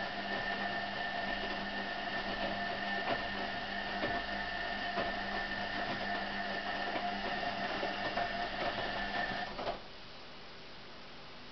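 Hoover A3308 washing machine running with a steady whine and small irregular knocks, which cuts off suddenly about ten seconds in, leaving a quieter steady hum.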